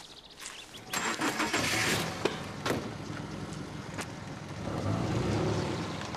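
A car being got into and started: several sharp clicks and knocks, then the engine starts about four and a half seconds in with a low rumble.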